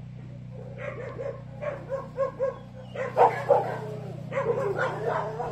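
A dog whining and yipping in short repeated cries, starting about a second in and growing louder and more frequent from about three seconds in, over a steady low hum.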